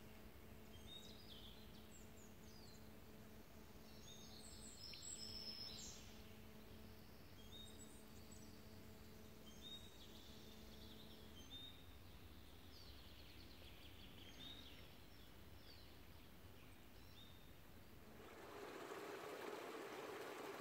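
Faint outdoor birdsong: scattered short chirps and trills from small birds over a low rumble and a faint steady hum that stops about halfway through. Near the end a steady rushing sound of river water comes in.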